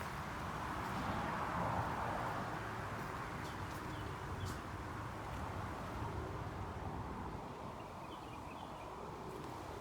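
Steady outdoor background noise with a few faint bird chirps in two short groups, a few seconds apart.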